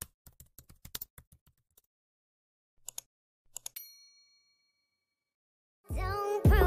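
Keyboard-typing sound effect: a quick run of clicks, then a pair of mouse-style clicks and a short bell ding that rings out and fades. Music starts near the end.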